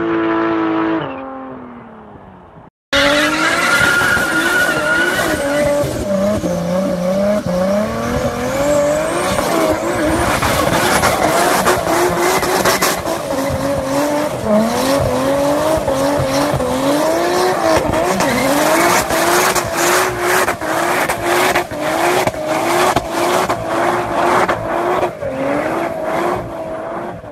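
A turbocharged 2JZ straight-six engine held high in the revs through a smoky burnout, tyres squealing. The revs waver up and down, and near the end they rise and fall in quick repeated swells. Before a short break about three seconds in, a steady engine note drops away in pitch and fades.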